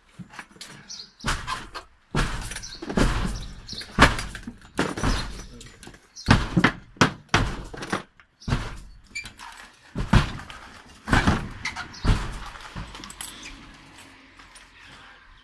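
Irregular thuds and knocks of a house's front door being forced: men shoving against the door while another works at the lock and frame. There are about a dozen blows, dying away near the end.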